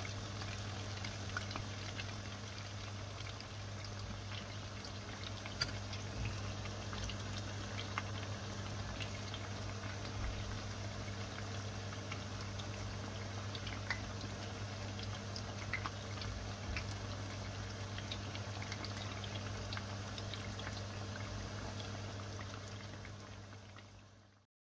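Saheena frying in hot sunflower oil: a steady sizzle with scattered sharp pops and crackles, over a steady low hum. It fades out near the end.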